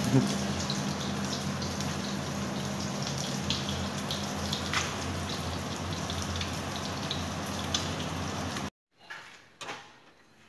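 Tilapia frying in hot oil in a pan: a steady sizzle with small scattered crackles and pops, which cuts off abruptly about eight and a half seconds in, followed by a couple of faint knocks.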